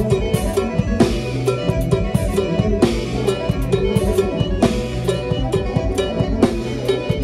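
Live band music: electronic keyboards playing over a drum kit with a steady, fast beat.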